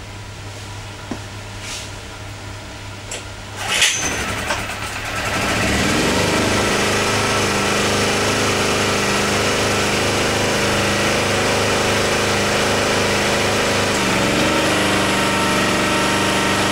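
Kawasaki GA1400 portable generator being started: a sharp pull about four seconds in, then the engine catches and settles into a steady, loud run. Its pitch briefly dips and recovers about fourteen seconds in.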